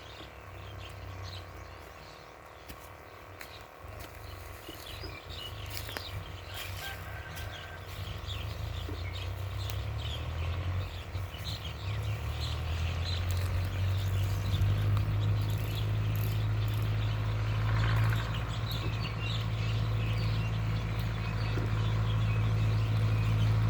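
Birds chirping, with a motor's low steady hum that grows louder from about eight seconds in and is the loudest sound by the end.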